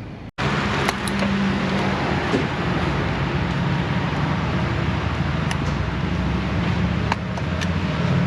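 A car engine running steadily with a low hum, cutting in suddenly about a third of a second in, with a few light clicks over it.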